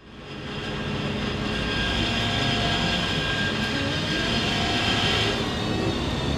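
Inside a moving trolleybus: the electric traction drive whines steadily over the low rumble of the ride, fading in over the first second. The high whine dies away about five and a half seconds in, while the low rumble grows.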